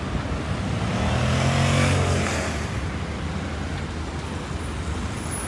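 A motor vehicle's engine passes close by, swelling to its loudest about two seconds in and then fading, over the steady hum of city street traffic.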